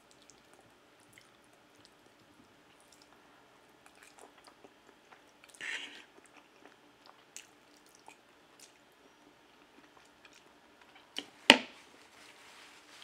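A person eating spaghetti close to the microphone: faint chewing and small clicks, a short slurp of noodles about six seconds in, and one sharp knock near the end.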